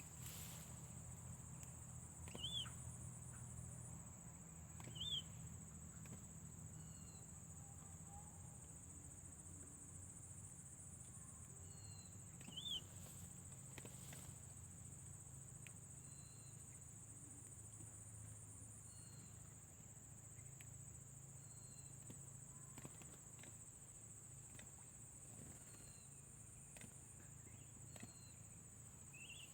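Faint outdoor ambience: a steady high-pitched insect drone, with short bird chirps a few times and fainter calls between them.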